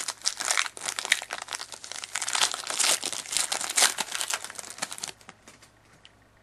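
A hockey card pack's wrapper crinkling and tearing as it is ripped open, a dense crackling that stops about five seconds in.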